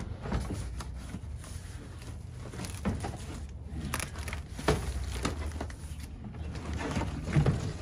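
Cardboard boxes and a plastic tote being shifted and lifted in a pickup truck bed: scattered knocks, scrapes and cardboard rustles, the loudest about halfway through and near the end, over a low steady rumble.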